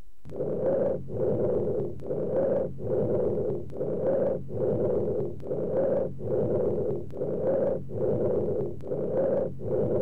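Bronchial (tracheal) breath sounds on chest auscultation: a loud, high-pitched, blowing noise. It comes in even segments, each breath phase separated from the next by a short gap, about one every 0.7 s. It is the breath sound heard over the trachea, or over consolidated lung where the higher frequencies are not filtered out.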